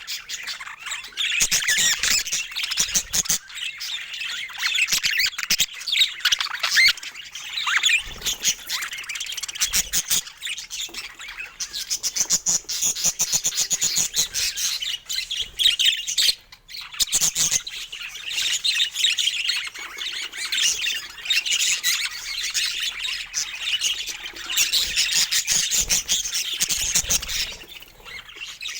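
Budgerigars chattering and warbling, with rapid squawky chirps running on without let-up apart from a brief lull about halfway through.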